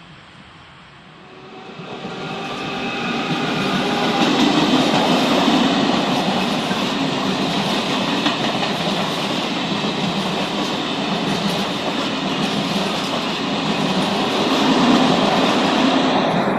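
A Renfe train coming closer and then running past on the track. Its noise swells over the first few seconds, then holds steady and loud.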